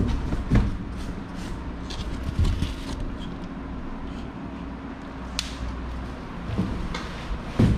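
Cardboard box and packaging being handled while a bicycle is unboxed: scattered knocks, taps and rustles over a steady low hum.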